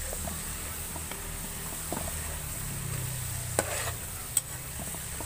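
Coconut cream frying down into coconut oil in a metal wok, sizzling steadily as a metal spatula stirs and scrapes through the oil and browning coconut curds. A few sharp ticks stand out, the loudest about three and a half and four and a half seconds in.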